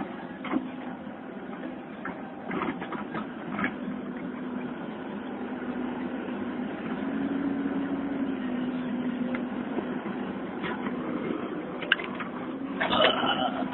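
An engine running steadily with a low hum that shifts slightly in pitch. Scattered knocks run over it, and a louder clatter of noise comes near the end.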